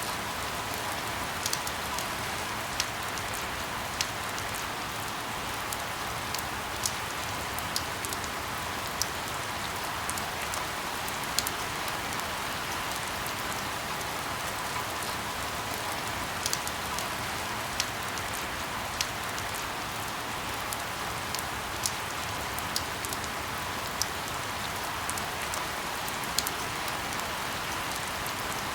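Steady rain falling, an even hiss with scattered sharp taps about once a second.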